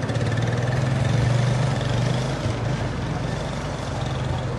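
Motor vehicle engine running with a steady low hum that swells a little about a second in, then eases off.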